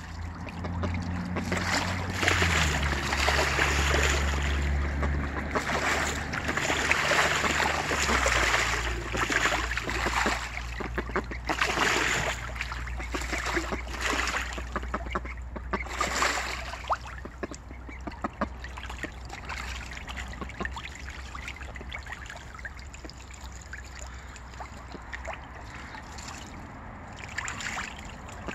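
Young ducks bathing in a small paddling pool, splashing and flapping water about, with water trickling steadily. The splashing is heaviest in the first half and eases off in the second.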